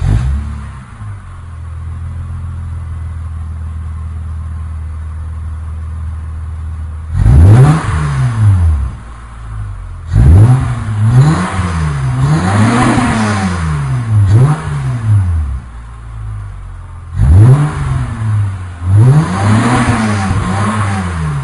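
Acura TL's 3.2-litre V6 heard at its dual exhaust tips, catching right at the start and settling into a steady idle. From about seven seconds in it is blipped repeatedly, the pitch sweeping up and falling back each time: once, then a string of quick revs, a short idle, and more revs near the end.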